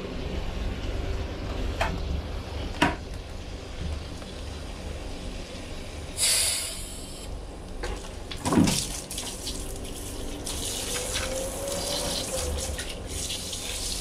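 Mains water hissing and spraying out of a thin clear tube fed through brass hose fittings from a shower hose: a short spurt about six seconds in, then a longer spray from about ten seconds on. Before that come a few sharp clicks of the fittings being handled, and there is a single clunk near the middle.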